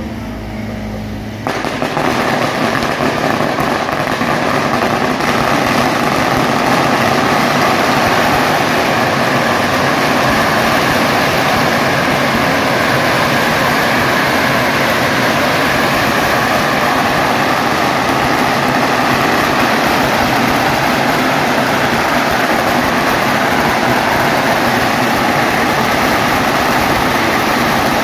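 A long barrage of firecrackers going off as one dense, unbroken crackle, starting suddenly about a second and a half in and staying loud throughout.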